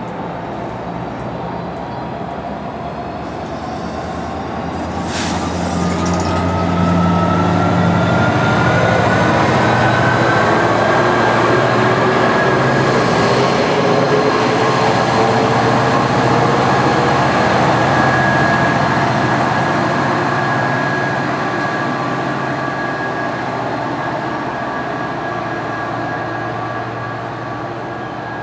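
NJ Transit PL42AC diesel locomotive pushing a multilevel commuter train out of the station. Its engine and motor whine rise slowly in pitch as the train accelerates, loudest as the locomotive passes, with wheel and car rumble under it.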